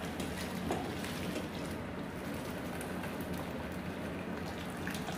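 Hot pasta water pouring from a stainless-steel saucepan through a stainless mesh strainer into the pot below, a steady splashing as the spaghetti is drained.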